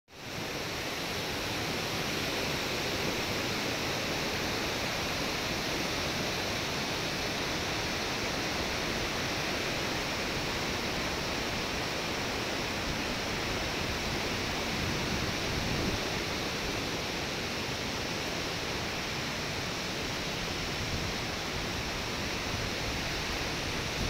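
Steady rush of a waterfall and the fast water of its rocky stream.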